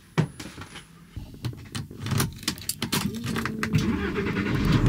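A bunch of keys jangling and clicking in a hand, a run of small sharp clicks, over a low steady rumble that starts about a second in.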